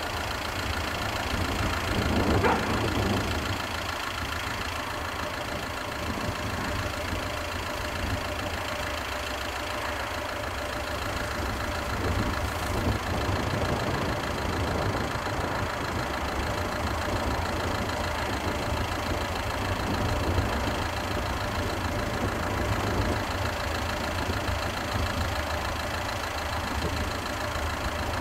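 A vehicle engine idling steadily, a continuous low rumble, with a brief swell about two seconds in.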